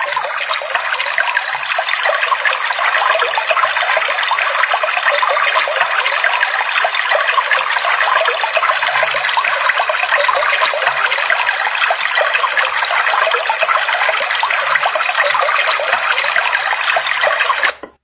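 Alarm clock's built-in speaker playing its running-water nature alarm sound, a steady rushing of a waterfall or river, which cuts off suddenly near the end.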